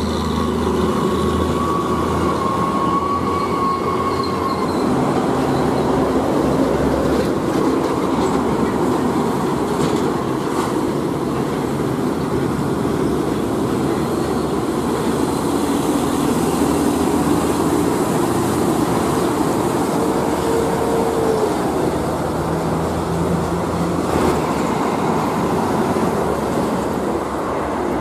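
Heavy diesel truck engine pulling away and accelerating, its pitch rising and falling as it works up through the gears, over steady tyre and road noise. The main source is a Hino Ranger FM 285TH tractor hauling an LPG tank semi-trailer. Near the end a second cargo truck's engine joins in.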